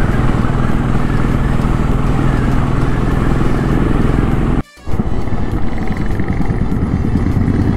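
Royal Enfield motorcycle engine running steadily while riding, heard from the rider's seat with a constant rush of wind over it. The sound drops out for an instant a little over halfway through, then the engine carries on.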